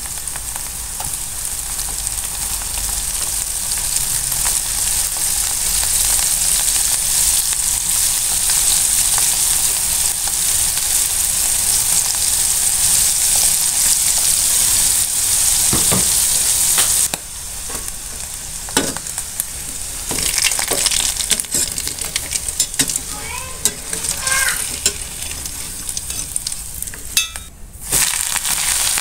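Battered pieces deep-frying in hot oil in a small pan, a steady loud sizzle. About halfway through it drops to a quieter crackle with scattered sharp clicks, then flares up loud again at the very end as fresh coated pieces go into the oil.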